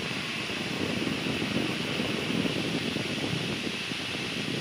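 Steady cockpit noise of a Gulfstream IV jet in the climb: an even rushing of airflow and cabin air, with no changes.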